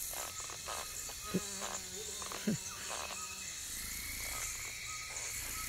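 Sound-designed alien jungle ambience: many small creature chirps and trills over a steady high insect-like hiss, with two brief soft pops about a second and a half and two and a half seconds in.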